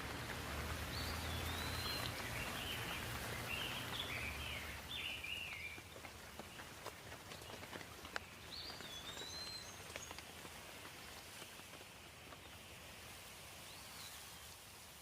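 Light rain falling with scattered drips, and small birds chirping over it in the first few seconds and again briefly around the middle. The rain grows gradually quieter toward the end.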